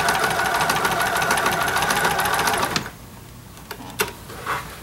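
Computerized sewing machine running steadily while sewing a blanket stitch around a quilt applique, with a rapid, even stitching rhythm; it stops suddenly a little under three seconds in. A few light clicks follow.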